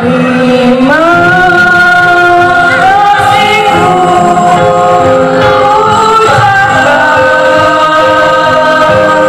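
Choir of schoolchildren and their parents singing a slow song in Indonesian, with long held notes, over a steady instrumental backing.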